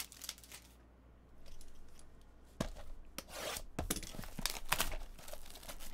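Plastic wrap crinkling and tearing, with sharp clicks of handling, as a trading card box is picked up and opened. The sounds start after a brief lull and come thicker near the end.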